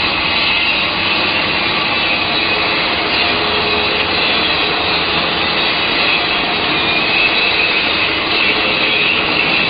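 Steady, loud mechanical rushing noise with a faint high whine running throughout, from machinery or a power tool at work.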